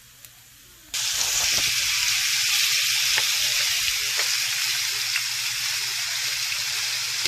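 Chicken pieces sizzling in hot bacon drippings in a frying pan, a steady loud sizzle that starts abruptly about a second in, with a few small clicks from the pan.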